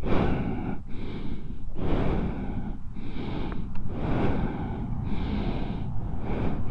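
A person breathing heavily close to the microphone: a rushing, rhythmic sound that breaks roughly once a second.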